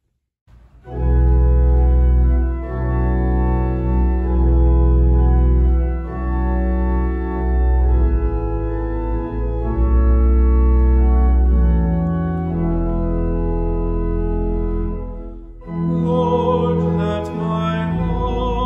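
Church organ playing slow sustained chords over deep pedal bass notes, starting about a second in. After a brief dip about fifteen seconds in, a wavering melody line enters over the chords.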